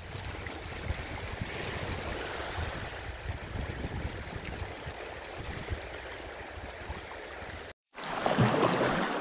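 Steady rush of water where a small stream runs over pebbles into the lake, with small waves washing on the shore. It cuts off just before the end, giving way to louder water around a moving kayak.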